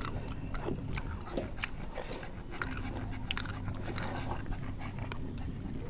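Close-up crunchy chewing and biting of food: many irregular sharp crunches.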